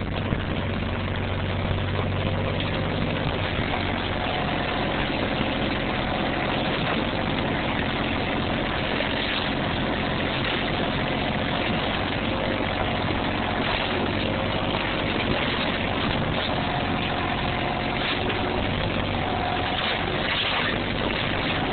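Kubota compact backhoe's diesel engine running steadily, with a faint higher tone coming and going over it.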